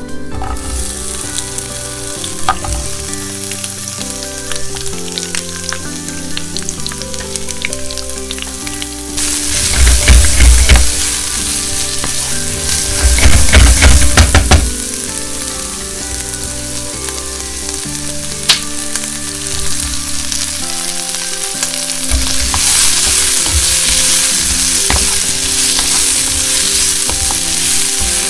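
Sliced onion sizzling in hot oil with minced garlic and dried red chili in a frying pan, stirred and scraped with a wooden spatula. The sizzle starts suddenly at the outset, with two louder bouts of stirring and scraping about ten and fourteen seconds in.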